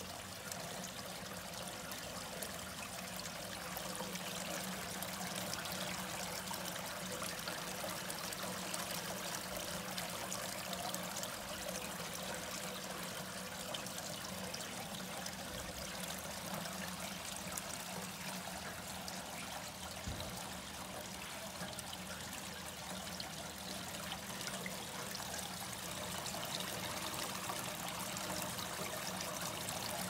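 Water trickling and splashing steadily as it spills from bowl to bowl down a copper-bowl cascade fountain and falls into the basin.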